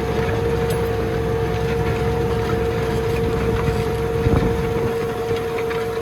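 Tractor running under load while pulling a plough, a steady engine drone with a steady whine over it. A brief louder knock comes about four seconds in.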